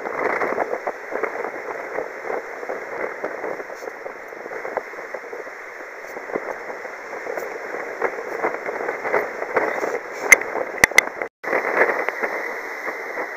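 Steady crackly rush of wind and sea noise on the deck of a sailing ship. Three sharp clicks come near the end, and the sound cuts out for a moment just after them.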